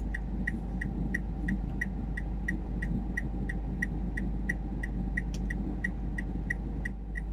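Car's turn-signal indicator clicking steadily, about three clicks a second, over the low, steady hum of the car idling.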